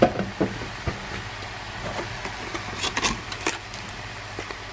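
A few light knocks of a wooden spoon against a metal cooking pot as fish pieces are pushed into the seafood, over a steady low hum with a faint hiss.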